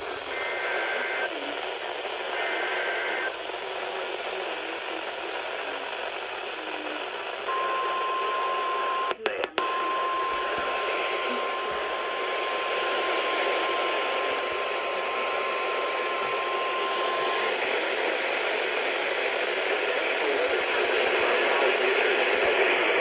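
NOAA Weather Radio broadcast under steady static hiss. Two short bursts of buzzy SAME digital header tones come first. Then the steady 1050 Hz weather-radio warning alarm tone sounds for about ten seconds, with a brief dropout early in the tone.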